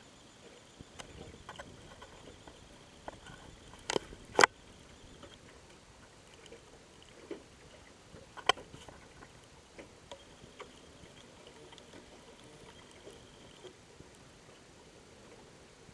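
Knocks and clicks aboard a small wooden sailboat, muffled by a waterproof camera case, over a faint steady hiss: two sharp knocks close together about four seconds in and a third about eight and a half seconds in, with lighter clicks between.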